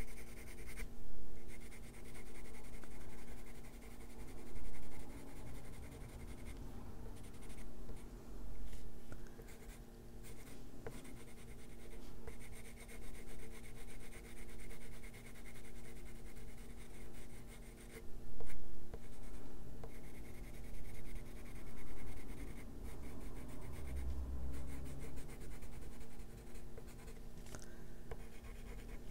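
Colored pencil scratching across paper in repeated, uneven strokes as blue is layered over a dark blue area.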